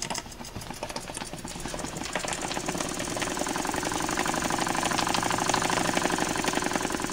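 Small PM Research double-acting oscillating steam engine running on low-pressure steam (1 to 2 PSI), making a rapid, even chuffing from its ports. It picks up and grows louder over the first few seconds, then runs steadily.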